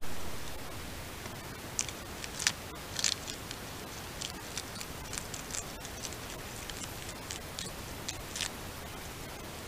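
North American porcupine chewing milkweed leaves: a loose run of short, crisp crunching clicks starting about two seconds in and stopping shortly before the end. Under it runs the steady hiss of a trail camera's microphone.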